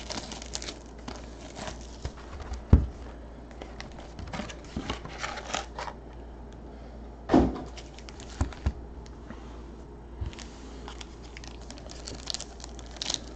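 A cardboard trading-card box being opened and its foil-wrapped packs taken out and set on a table: rustling and crinkling of cardboard and foil, with a few knocks, the loudest about seven seconds in.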